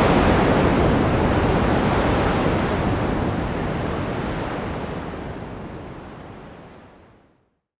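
Ocean surf rushing as a steady wash of noise that fades gradually away to complete silence near the end.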